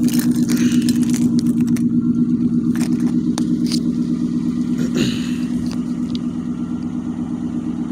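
Ford Mustang GT's V8 idling steadily at the exhaust, with an even pulsing beat, warming up after a cold start. A few sharp clicks and scrapes sit on top of the idle.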